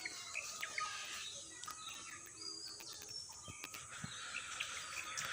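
Small birds chirping in short, scattered notes over a faint, steady high hiss of outdoor ambience.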